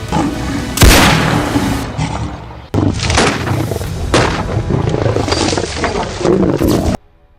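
A series of loud booms, each starting sharply and fading in a long rumble. The strongest comes about a second in and another just before three seconds, and the sound cuts off abruptly near the end.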